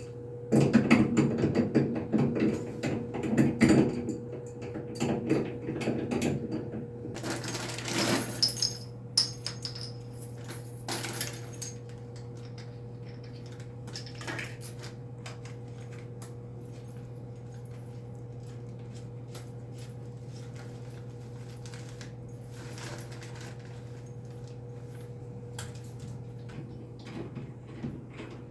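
Irregular clattering and knocking of hard objects for about the first twelve seconds, over a steady electrical hum that carries on alone afterwards.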